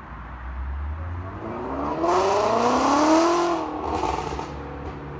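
Shelby GT350R's flat-plane-crank V8 idling, then revving up hard, with rising pitch, and dropping back with a second short blip before settling to idle.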